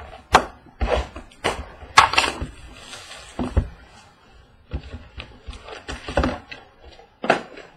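Cardboard trading-card hobby box and its foil card packs being handled on a table: a string of sharp knocks and taps as the box is moved, set down and opened, with rustling as the packs are tipped out.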